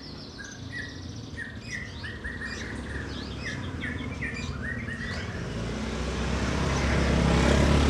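A small bird chirping in a quick, repeated series of short notes. From about five seconds in, the low rumble of a passing vehicle grows steadily louder and covers the chirps.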